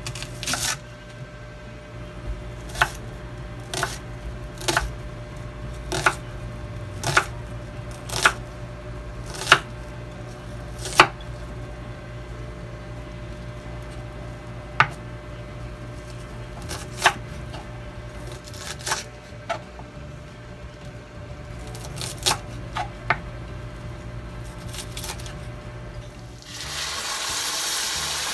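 Kitchen knife slicing an onion on a wooden chopping board: single sharp knocks of the blade hitting the board, about a second apart at first and more spread out later, over a steady low hum. Near the end the knocks give way to a steady sizzle of food frying in a hot wok.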